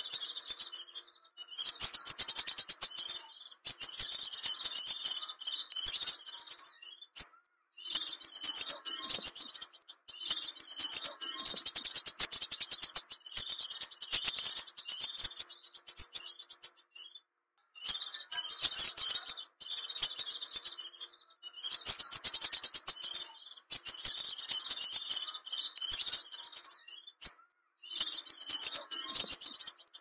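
Crimson sunbird (sepah raja) song used as a lure call: rapid, high-pitched twittering in runs of a few seconds, broken by brief pauses.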